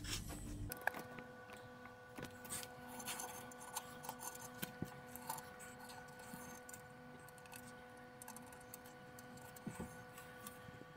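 Faint scratching and light clicking as a pencil traces around the base of a toilet bowl onto masking tape on the floor, over a faint steady hum that starts under a second in.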